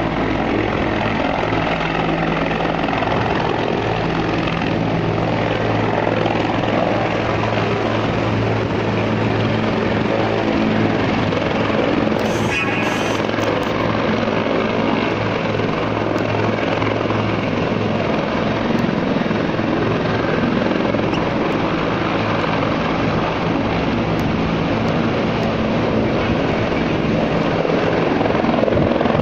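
Bell UH-1H Huey helicopter running steadily on its rooftop pad, a continuous turbine and rotor noise with low steady tones.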